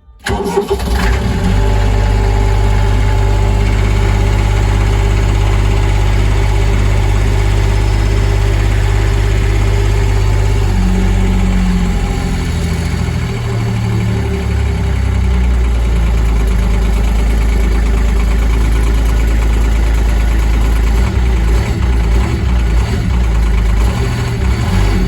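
Diesel tractor engine started after warming the glow plugs: it fires and catches within about a second and settles into a steady idle. Around the middle its speed shifts up and then down, and it then runs steady again.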